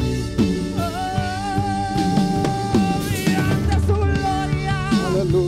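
Loud live church worship music: a drum kit beat with bass, and a long wavering note held over it for a couple of seconds about a second in.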